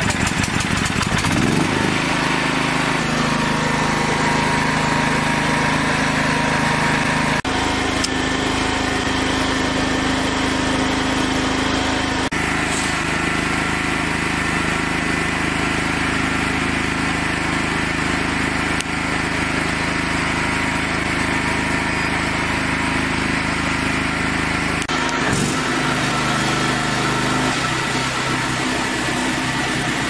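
The engine of an MJH1000 hydraulic portable sawmill running steadily just after starting. Its note shifts several times: a rise about a second in, then changes near a quarter, near the middle and near the end.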